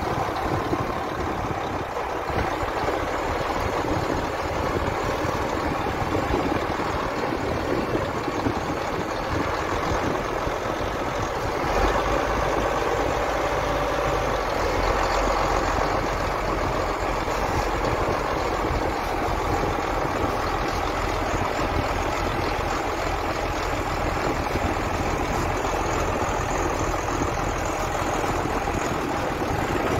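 Farm tractor engines running steadily during beet harvesting; about twelve seconds in, a deeper, louder engine rumble joins in and stays.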